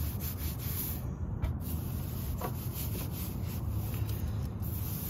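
A bristle wheel brush scrubbing the wet, cleaner-foamed rim and spokes of a Honda Gold Wing's rear wheel: a steady, uneven rubbing and swishing of bristles on the wheel.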